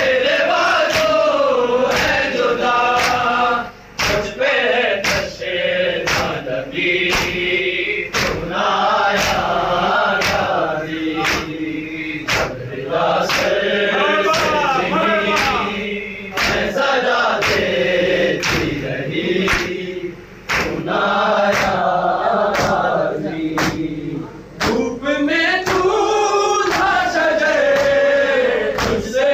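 A noha, the Shia lament, chanted by a lead reciter over a microphone with a group of men chanting along, over a steady beat of open palms slapping chests in matam, about one slap a second.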